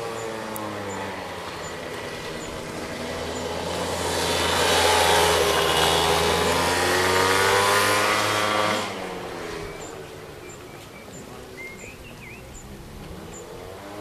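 A motor vehicle's engine swelling louder with a shifting pitch, then dropping away abruptly about two-thirds of the way through.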